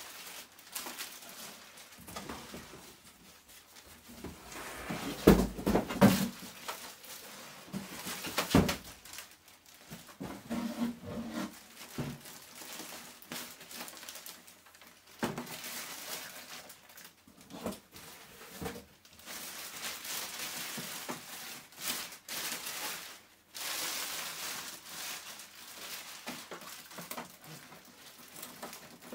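A large plastic bag rustling and crinkling as a boxed printer wrapped in it is lifted out and handled, with irregular knocks and thumps. The loudest knocks come about five to nine seconds in.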